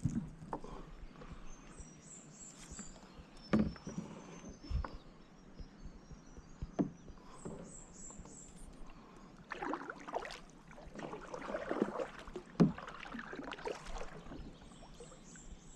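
Kayak being paddled: the paddle blades dip and splash in the water, busiest in the second half, with a few sharp knocks on the hull. Small birds chirp in short high runs now and then.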